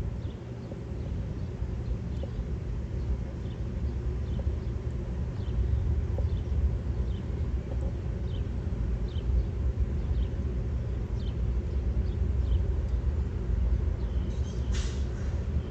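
Diesel freight locomotives approaching, their engines a low rumble that grows slightly louder. Faint high chirps repeat throughout, and a short hiss-like burst comes near the end.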